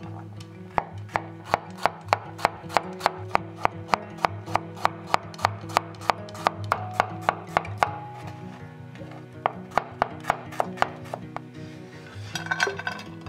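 Chef's knife slicing garlic cloves on a wooden cutting board: steady knife strikes on the board, about three or four a second, then a brief pause and a shorter run of strikes. Near the end, the sliced garlic is scraped off the board into a glass dish.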